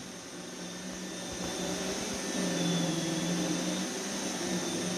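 iRobot Roomba 960 robot vacuum running on carpet, a steady motor hum over the whir of its brushes, growing louder about halfway through as it works over a spot it has found to be dirty.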